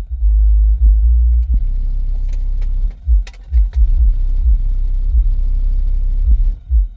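Deep bass line played loud through a car audio system's subwoofers, heard from inside the car: very low notes pulsing in a rhythm with short breaks between them.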